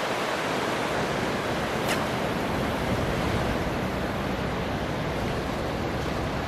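Steady noise of surf breaking along the beach, with some wind on the microphone; a brief faint tick about two seconds in.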